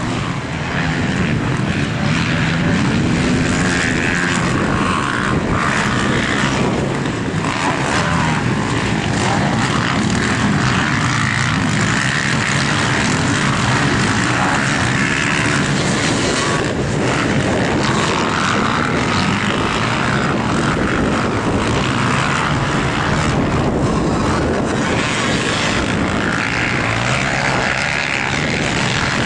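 Motocross dirt bike engines racing around a dirt track, several bikes revving up and down.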